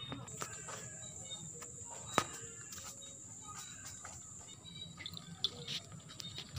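Insects trilling steadily at a high pitch, with a single sharp click about two seconds in and a few fainter ticks. There is no loud yowling from the mating cats.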